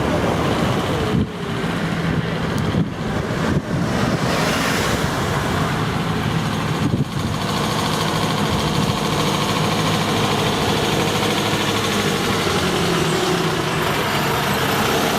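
A large truck engine idling steadily, a low even hum with a few brief dips in the first seven seconds.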